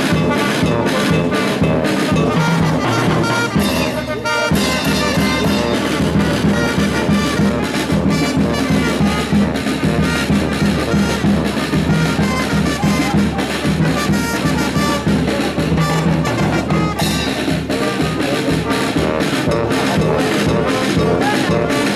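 Brass band music with a steady beat, trumpets and trombones carrying the tune.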